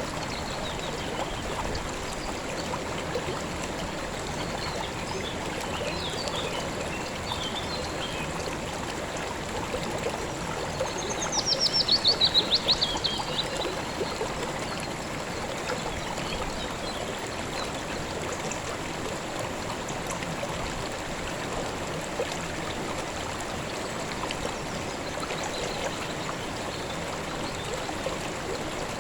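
River water flowing steadily over rocks, a constant rushing babble. About a third of the way in, a bird gives a loud, rapid trill of notes that slides downward for about two seconds, with a few faint chirps around it.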